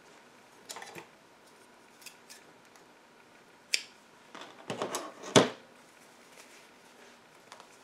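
Scissors snipping loose yarn ends: a few scattered short snips and clicks of the blades, the loudest a little past five seconds in.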